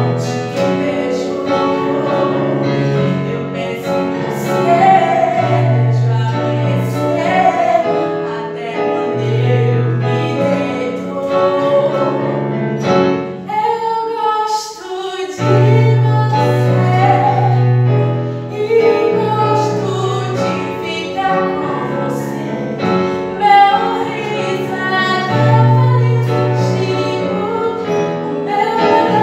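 A woman singing a song to digital piano accompaniment, with sustained low chords under the melody; the accompaniment thins out briefly about halfway through before the full chords return.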